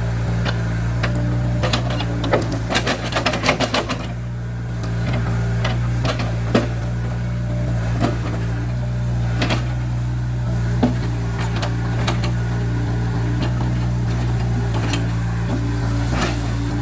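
Caterpillar 307C excavator's diesel engine running steadily, with scattered sharp knocks and a burst of rapid clattering a couple of seconds in, as the machine works rock.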